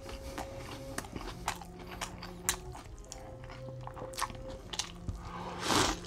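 Close-up chewing of a Burger King Double Whopper with cheese: scattered soft, wet clicks and smacks of the mouth, with a louder noisy swell near the end as another bite is taken.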